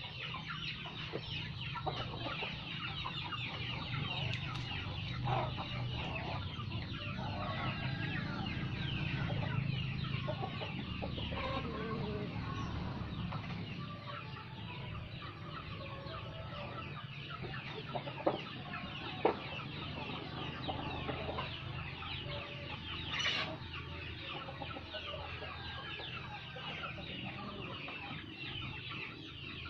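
A flock of chickens clucking and calling continuously at feeding time, with a couple of sharp clicks about two-thirds through and one louder call shortly after.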